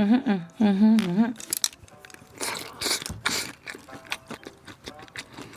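A person's voice making short vocal sounds at the start, followed by a few short hissing, breathy noises and scattered small clicks.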